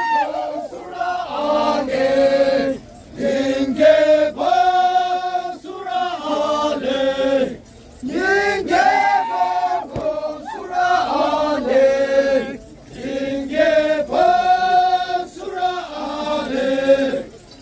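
A group of Naga men singing a traditional chant together, in repeated phrases of four to five seconds with short breaks between them.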